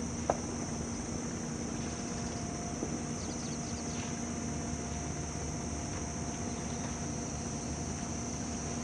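Steady mechanical hum with a constant high whine, typical of machinery running on a construction site, broken by one sharp click just after the start.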